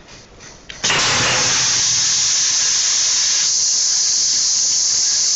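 Cashew nut peeling machine's compressed-air jets blowing: a loud, steady hiss that starts suddenly about a second in.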